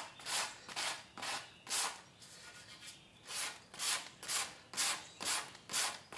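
Sandpaper being rubbed back and forth by hand over a wooden kayak paddle, in regular scratchy strokes about two a second, with a short pause near the middle.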